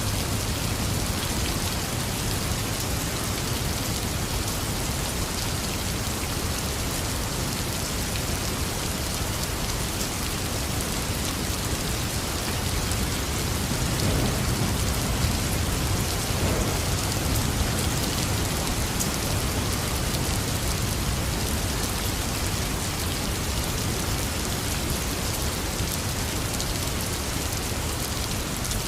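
Heavy, steady rain falling, with a low rumble of thunder swelling briefly about halfway through.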